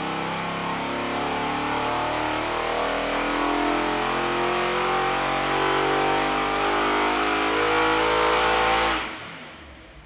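Pontiac 409-cubic-inch carbureted V8 running a full-throttle pull on an engine dyno. It winds up and grows steadily louder, then cuts off sharply about nine seconds in.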